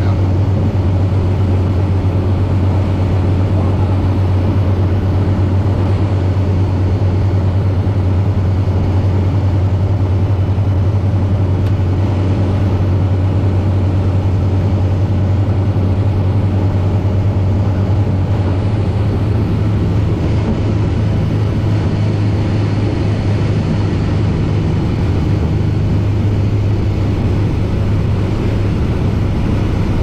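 Steady drone of a single-engine light aircraft's piston engine and propeller, heard inside the cockpit as the plane rolls along the runway after landing. It eases slightly about two-thirds of the way through.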